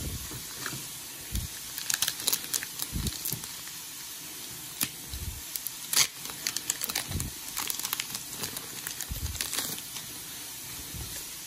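Foil booster pack wrapper crinkling and tearing as it is opened, in irregular bursts of crackle, with a few soft low thumps of handling.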